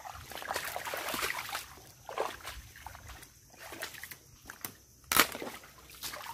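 Sloshing and splashing of a person wading through shallow water and mud, then scattered splashes and squelches as hands dig among mangrove roots. One sudden loud noise about five seconds in stands out above the rest.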